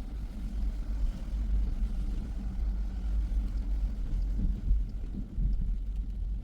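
A car driving along, with a steady low road and engine rumble.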